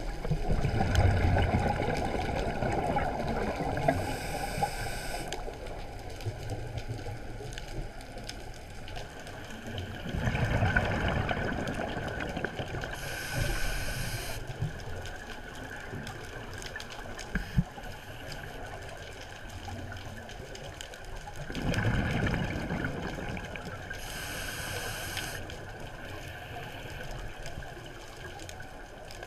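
Scuba diver breathing through a regulator: three rounds of exhaled bubbles gurgling, each followed shortly by a brief hiss of air through the regulator, about ten seconds apart.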